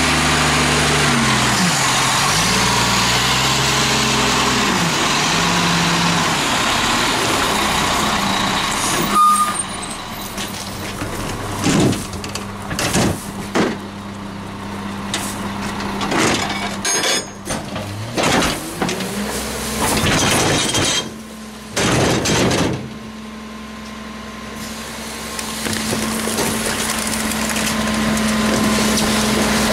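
CCC McNeilus rear-loader garbage truck's diesel engine running, its pitch rising and falling, for the first nine seconds. Then comes a string of clunks and thuds as a refuse container is tipped and bags drop into the rear hopper, followed by a steady hum for the last ten seconds as the tipper works.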